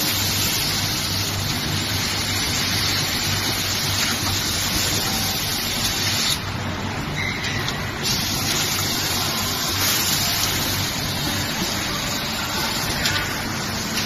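Rotary high-frequency welding machine running: a steady hum under a continuous hiss, with the hiss easing for a moment about six seconds in.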